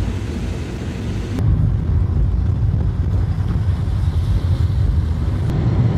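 Steady low rumble of a car driving on a wet road, heard from inside the cabin. About a second and a half in, the sound changes abruptly: the upper hiss drops away and the low rumble gets louder.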